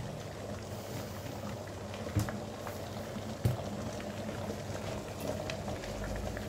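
Water boiling in a large stainless steel pot: a steady bubbling with many small pops, and two brief sharper knocks about two and three and a half seconds in.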